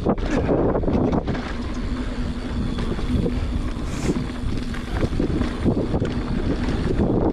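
Wind buffeting the microphone of a mountain biker's ride camera, over the rumble of tyres on a dirt trail and the rattling of the bike on rough ground.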